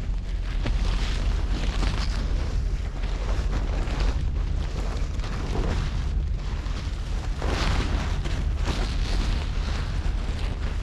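Wind buffeting the microphone with a steady low rumble, over sea waves washing onto a rocky shore that swell and fade several times.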